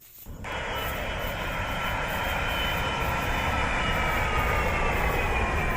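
Airplane engines running loud: a steady rush with several high whining tones that slowly fall in pitch. It cuts in abruptly about half a second in.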